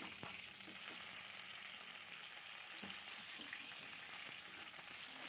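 Bata fish (small carp) frying in oil in a metal kadai on a low-to-medium flame, a faint steady sizzle. A few light taps of a metal spatula against the pan as the fish are turned.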